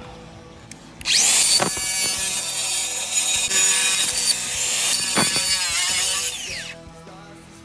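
DeWalt FlexVolt 60 V cordless circular saw spinning up about a second in, cutting through the wooden roof decking for about five seconds, then winding down.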